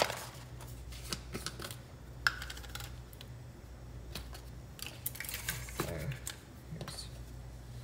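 Light, irregular clicks and taps from a spice jar and measuring spoon being handled while dried Italian seasoning is measured out, over a steady low hum.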